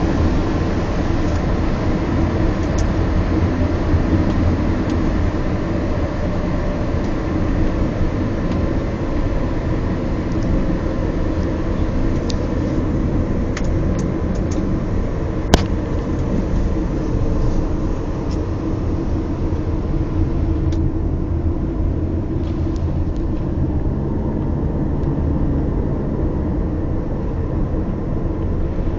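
Steady low rumble of a car driving, engine and road noise heard from the vehicle, with a few faint clicks and one sharp click about halfway through.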